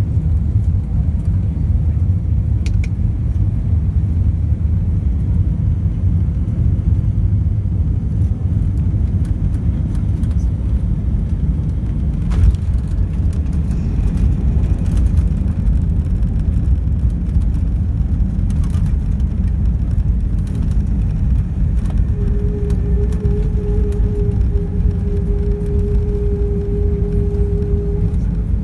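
Cabin noise inside an Airbus A320 landing: a steady low rumble of engines, airflow and then the wheels rolling on the runway, with a single thump about twelve seconds in as the aircraft touches down. A steady whine joins in for the last several seconds of the roll-out.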